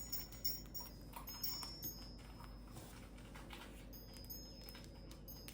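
Cockatiel eating millet: faint soft clicks of seeds being husked, with thin high tones that come and go.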